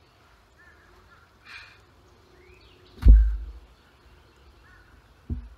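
Birds calling faintly, with one heavy thump about three seconds in and a smaller knock near the end.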